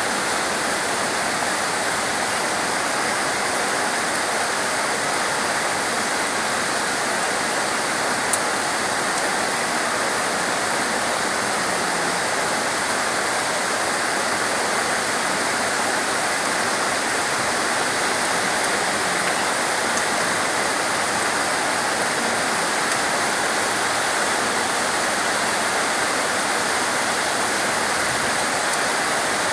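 Heavy rain pouring steadily, an even unbroken hiss, with one brief click about eight seconds in.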